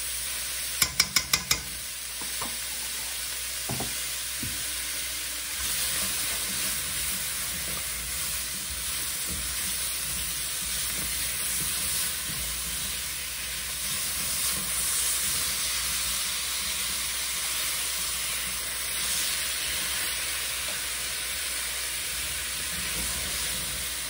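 Turnips, leeks and cloves sizzling in a butter alternative in a stainless steel skillet, stirred with a spatula. About a second in, five quick sharp clicks.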